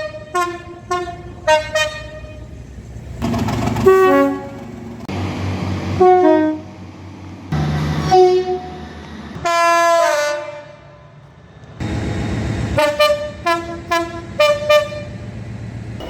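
Two-tone train horns from several trains in turn, mostly quick high-low toots repeated in short series, with one longer horn blast about ten seconds in. A low train rumble runs between the horn calls.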